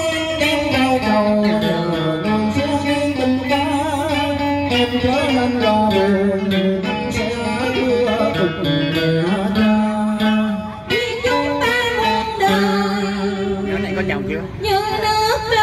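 Southern Vietnamese đờn ca tài tử performance: live singing through a PA system, with long held notes that slide in pitch, accompanied by a plucked guitar.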